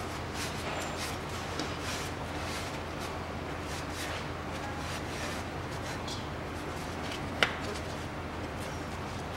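A rag rubbing and scraping over a rusty exhaust downpipe as a gloved hand wipes spilled oil off it, with faint scattered taps and one sharp click about seven seconds in, over a steady low hum.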